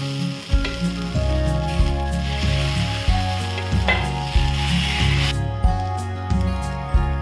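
Ragi dosa batter sizzling on a hot tawa as it is poured and spread with a ladle; the sizzle cuts off suddenly about five seconds in. Background music with a steady beat plays throughout.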